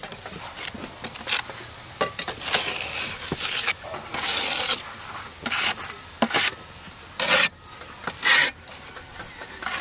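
Steel pointing trowel scraping and smoothing wet cement mortar along the edges of handmade clay barrel roof tiles, a run of short, irregular rasping strokes.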